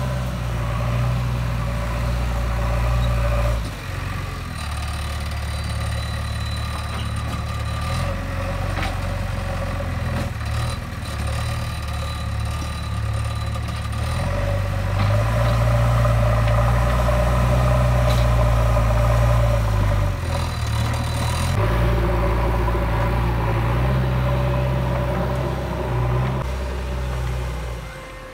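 JCB 3DX backhoe loader's diesel engine running under load as the machine pushes and levels soil with its front bucket. The engine note rises and falls with the work and is loudest for a few seconds in the middle.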